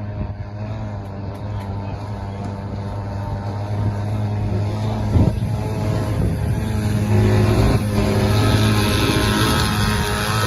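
Jet ski engine driving a short-tail boat, running steadily with a low hum and growing gradually louder, with one short sharp noise about five seconds in.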